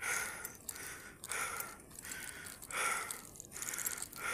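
A cyclist breathing hard while climbing: four loud, even breaths about one and a half seconds apart.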